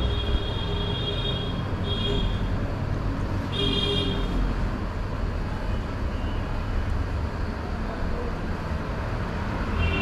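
Road traffic rumbling steadily, with vehicle horns honking in separate blasts: a long honk at the start, then two shorter ones about two and four seconds in.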